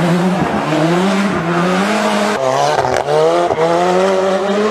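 Ford Sierra Cosworth rally car's turbocharged four-cylinder engine revving hard under acceleration, its pitch climbing and dropping back about five times as it runs through the gears.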